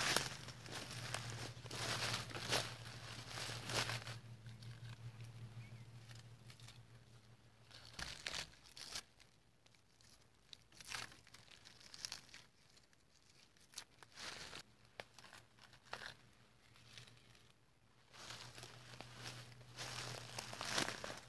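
Irregular rustling and crinkling, busiest in the first few seconds and again near the end, over a faint steady low hum that drops away about eight seconds in and returns near the end.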